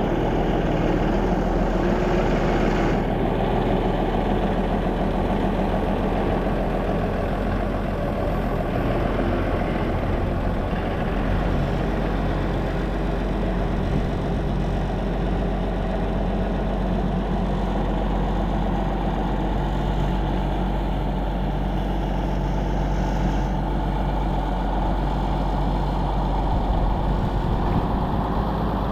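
7110 farm tractor's diesel engine idling steadily just after a cold start, warming up on a freezing morning.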